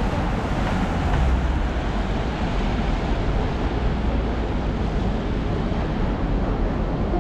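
Steady rumble and hiss of city street traffic, with no single event standing out.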